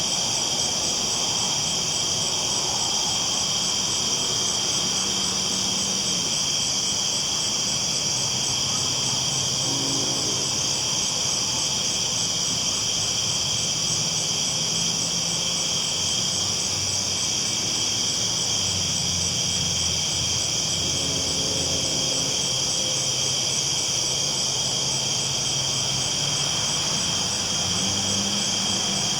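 Steady low rumble of a train rolling along the tracks, with faint tones in it that shift every few seconds, under a constant high chorus of night insects.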